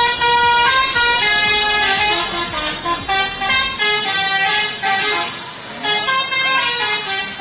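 Bus 'telolet' musical horn playing a melody: a string of held horn notes stepping from pitch to pitch, briefly dropping back about two-thirds of the way through.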